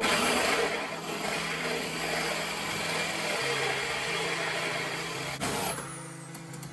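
Corded electric drill running under load, boring through wood, then stopping about five and a half seconds in.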